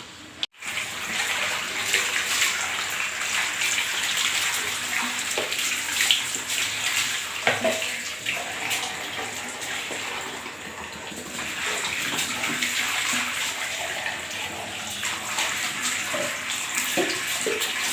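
Water running and splashing steadily, with a few light knocks.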